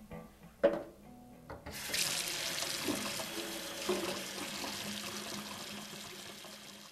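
A sharp knock about half a second in, then a kitchen faucet starts running about two seconds in: water pouring into a stainless-steel sink over a sock being washed by hand, slowly growing quieter.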